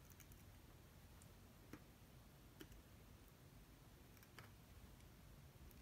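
Near silence with a few faint clicks, about a second apart, of a soldering iron tip and tweezers touching a small circuit board while wires are soldered to it.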